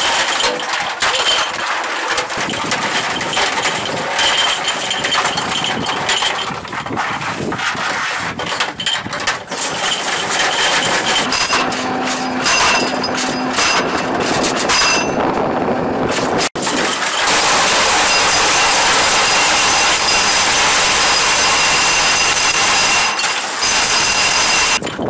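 Metal clinking and clattering of cannon rounds and the AV-8B Harrier II's linked feed chute being handled during ammunition loading. After a brief break about two-thirds of the way in, a steady loud rushing noise takes over and cuts off abruptly near the end.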